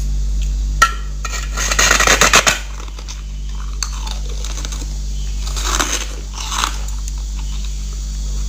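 Packed white snow-ice being bitten and chewed: one sharp snap about a second in, a fast run of crisp crunches around two seconds in, then softer crunches near six and seven seconds. A steady low hum lies under it all.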